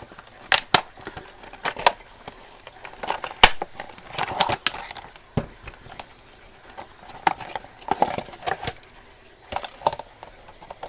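New padlocks being handled and opened up: an irregular string of sharp metal clicks and clinks, with a few longer rustling or scraping noises around the middle.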